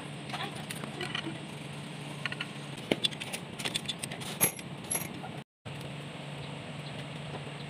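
Scattered metallic clicks and clinks of hand tools and engine parts being handled during a diesel engine rebuild, over a steady low hum. The sound drops out for a moment about five and a half seconds in.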